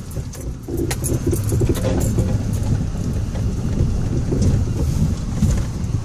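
Inside the cab of a Ford Raptor pickup crawling over a rough off-road trail: a low, steady rumble of engine and drivetrain, with scattered rattles and clicks from loose things in the cab as the truck bounces.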